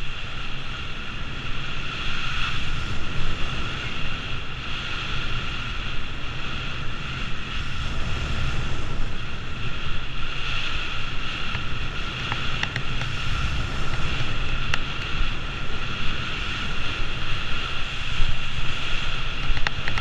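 Wind buffeting a GoPro's microphone during a fast downhill ski run, with a steady hiss of skis gliding and carving over packed snow.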